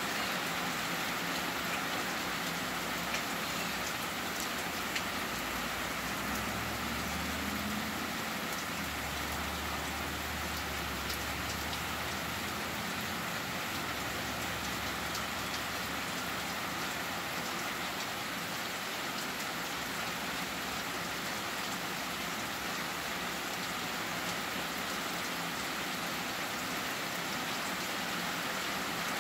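Heavy rain pouring steadily on trees, lawn and a porch roof, an even hiss. A faint low rumble sits underneath for several seconds near the middle.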